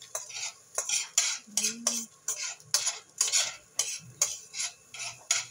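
A metal utensil scraping and stirring scrambled egg in a stainless steel pan, in quick repeated strokes about three a second.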